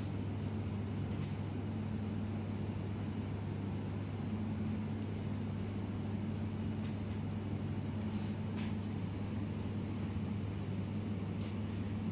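Steady low room hum at an even level, with a few faint, brief rustles or ticks, about four in all, scattered through it.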